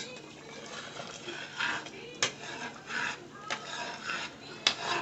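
A spoon stirring okra stew in a pot, with irregular scraping strokes and a few sharp clicks of the spoon against the pot.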